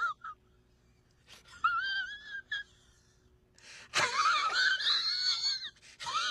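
A high-pitched, wavering wail in broken stretches: a short one about a second and a half in, then a louder, longer one from about four seconds, with near silence between.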